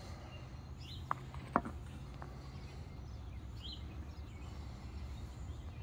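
Three light clicks of stone grinding stones (manos) knocking together as they are handled, the loudest about one and a half seconds in, over a steady low wind rumble on the microphone. Two faint bird chirps sound briefly.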